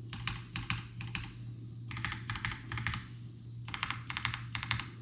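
Keebmonkey 1800 v1 mechanical keyboard with Akko Cream Yellow Pro linear switches being typed on, in three quick bursts of keystrokes with short pauses between them.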